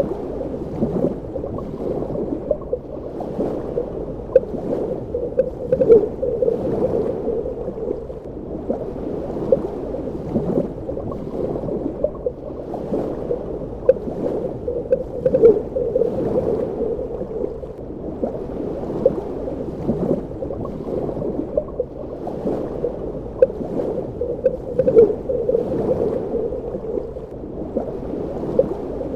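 Underwater ambience: a steady, muffled wash of water with gurgling, fine crackling and slow swells every second or two.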